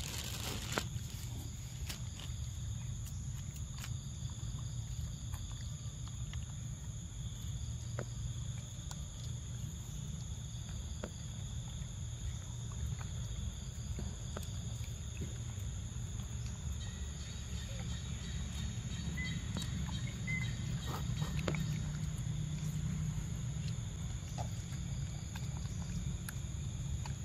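Forest ambience with a steady high insect buzz over a low steady rumble, and scattered small clicks and smacks of a macaque biting and chewing a ripe mango.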